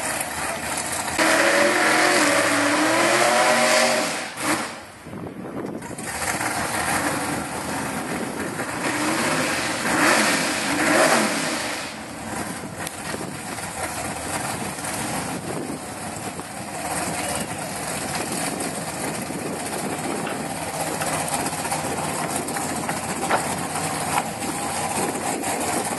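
Supercharged V8 of a drag car revving up and down in blips, loudest a couple of seconds in and again about ten seconds in, with steadier running in between and afterwards.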